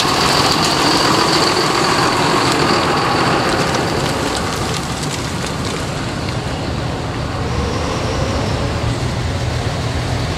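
A large modern John Deere tractor's diesel engine passes close by with a high whine, followed by a car's tyre and engine noise. Both fade over the first few seconds. Then the low, steady engine note of an approaching vintage tractor grows louder toward the end.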